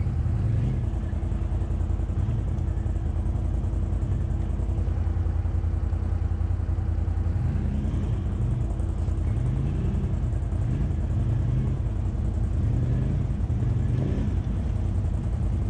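ATV engines running: a steady low engine note from a quad idling close by, and from about seven seconds in another quad's engine revving up and down as it climbs the snowy trail.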